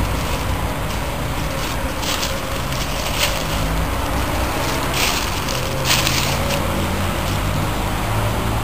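A car engine idling steadily, with a few crunching footsteps on dry fallen leaves.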